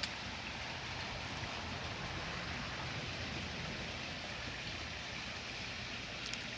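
Small brook running swiftly: a steady rush of flowing water.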